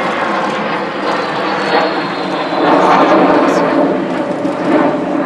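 Avro Vulcan B.2 XH558's four Bristol Siddeley Olympus turbojets running as the bomber flies past, a steady jet rumble with a faint high whine, swelling louder about halfway through.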